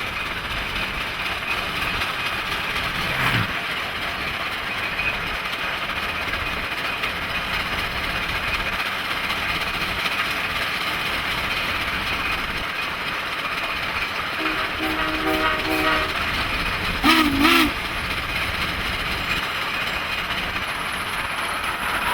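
Southern Pacific 4449 steam locomotive and its train running with a steady rumble. A faint, broken whistle sounds about two-thirds of the way in, followed by a short, louder steam whistle blast.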